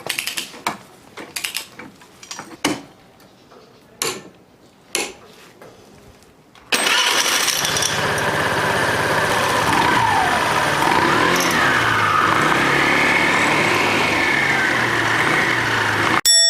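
A few scattered clicks and knocks, then a Honda Benly 110 scooter's single-cylinder engine running loudly, starting suddenly about seven seconds in, with its pitch rising and falling. The engine cuts off abruptly near the end.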